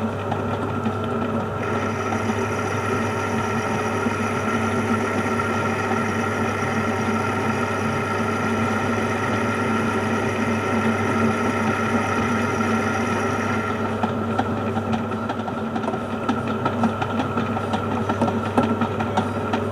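Metal lathe running steadily with a boring bar taking a light cut in an aluminium bore, a motor hum under several steady tones. A high whine joins about two seconds in and stops about fourteen seconds in, after which light irregular clicks come through.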